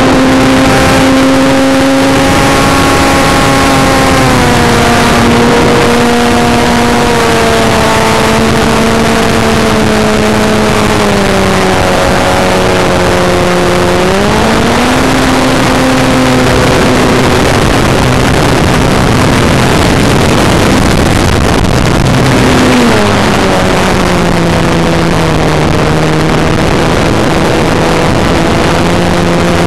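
Parkzone T-28 Trojan RC plane's electric motor and propeller whining in flight over loud wind rushing past the onboard camera's microphone. The pitch eases down gradually, climbs sharply about halfway through, then drops again about three quarters of the way in as the throttle changes.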